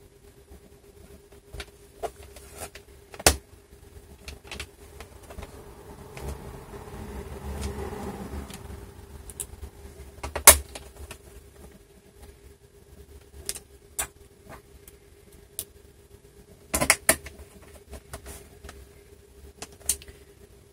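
Small screws being driven back into a laptop's plastic bottom cover with a precision screwdriver: scattered clicks and taps of the driver and screws against the case, with a stretch of soft rubbing from the turning a few seconds in.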